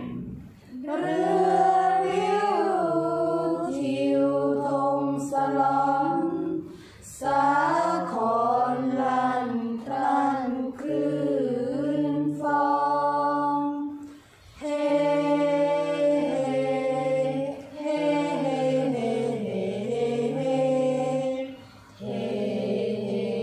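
A mixed group of teenage boys and girls chanting Thai kap he ruea (royal barge verse) together, unaccompanied. The verse comes in long, drawn-out melodic phrases with a short breath-pause every few seconds.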